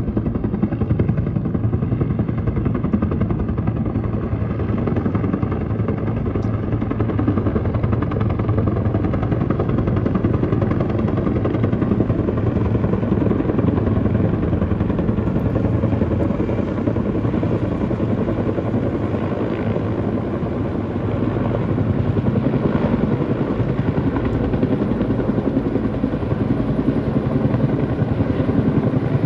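Firefighting helicopter flying low overhead with a water bucket on a long line, its rotor beating steadily and loudly.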